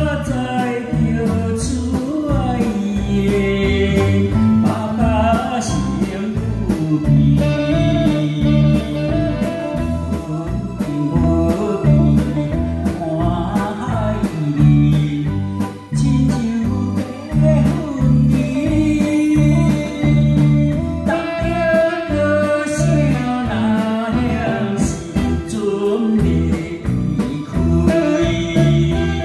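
A man singing a Taiwanese Hokkien song through a microphone and PA, backed by a live band with electric guitar and saxophone over a steady bass beat.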